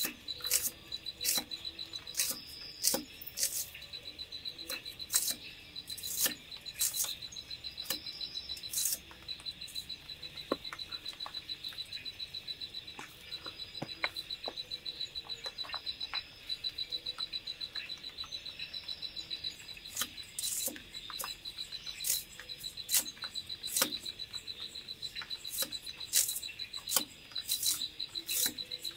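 A knife cutting shallots against a wooden log, making sharp irregular taps and clicks. Behind it, night insects chirp in a steady, rapid pulse.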